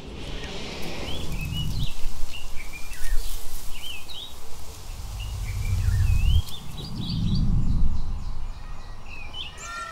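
Birds chirping in quick, varied short calls throughout, over several deep rumbling swells that rise and fade about a second or two apart.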